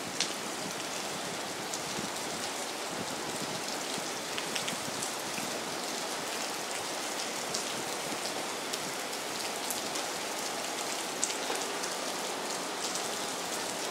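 Heavy rain falling steadily, a dense hiss with many scattered sharp drop ticks close by.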